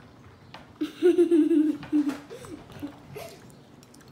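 A child's wordless vocal sound: a loud, drawn-out voiced sound of about a second, starting about a second in, followed by a few short ones.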